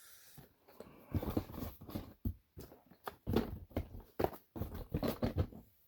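Irregular knocks, taps and rustles of items being handled and put into a cardboard box.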